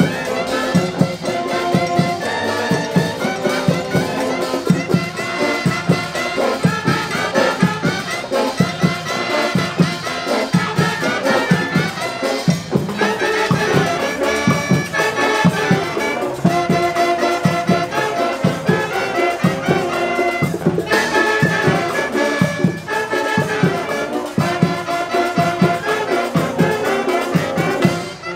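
A band playing music led by brass instruments such as trumpets, over a steady beat.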